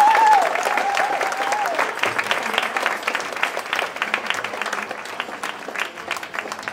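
Audience applauding a dance performance, with high warbling cheers over the clapping for the first two seconds or so. The applause slowly dies down.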